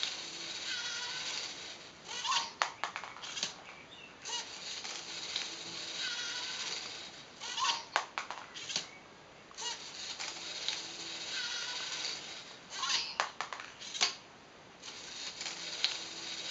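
LEGO NXT servo motors whirring through their plastic gears, the whine rising and falling in pitch, in a cycle that repeats about every six seconds. Each cycle has a cluster of sharp plastic clicks and clacks as the catapult arm swings and a ball is fed and thrown.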